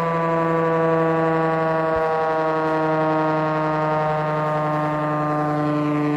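Industrial air-raid siren sounding a long, steady wail held at a nearly constant pitch, with only a slight slow wavering.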